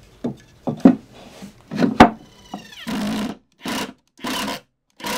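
Plastic hose coupler and plywood plate knocked and shuffled into place on wood. Then a cordless drill drives screws in four short bursts, the first about three seconds in.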